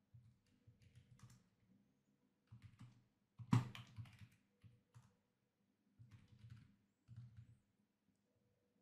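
Faint computer keyboard typing: short bursts of keystrokes, with one louder keystroke about three and a half seconds in.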